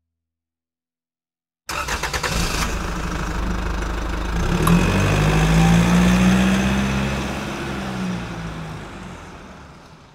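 An engine sound effect: it kicks in suddenly about two seconds in with a rapid chatter like cranking, catches and revs up, then fades away toward the end.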